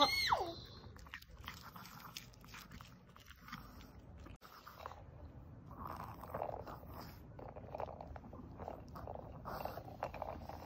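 Maltese dog crunching and chewing a hard treat, with small irregular crunches. A young child's high voice falls away in the first half-second.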